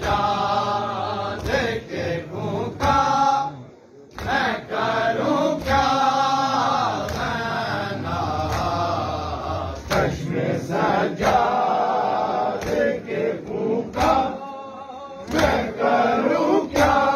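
A group of men chanting a Shia mourning lament (nauha) together while beating their chests in matam. The chanting is cut through by a beat of sharp hand slaps on bare chests.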